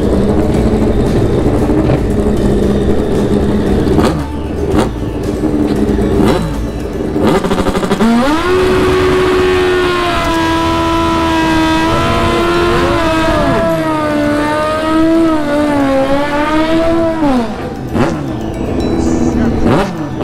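Sport motorcycle engine idling, then revved hard about eight seconds in and held at high revs for about nine seconds with the pitch wavering, as the rear tyre is spun in a burnout; the revs drop away near the end.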